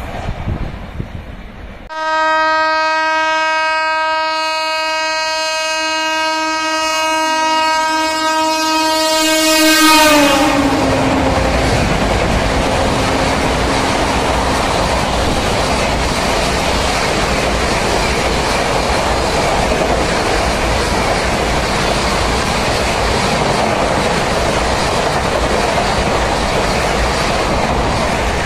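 Indian Railways electric locomotive horn sounding for about eight seconds as a high-speed express approaches, dropping in pitch as the locomotive passes. Then the steady rush and rattle of the LHB coaches passing at speed.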